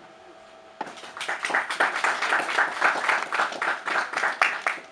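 Audience clapping, starting suddenly about a second in as dense, rapid, irregular claps.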